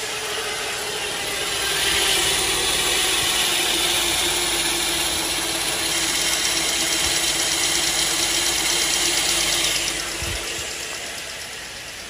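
The 3.6-litre V6 of a 2010 Chevy Traverse idling steadily, running after a new oil pressure sensor has been fitted and being checked for leaks. It grows louder about two seconds in and fades near the end.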